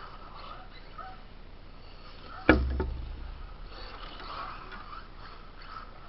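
A single sharp knock with a short low thud about two and a half seconds in, over a faint, uneven background.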